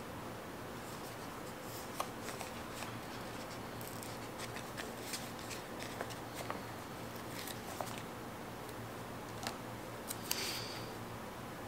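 Faint scattered small clicks and short rustles of paper being handled, with a slightly louder brief rustle near the end.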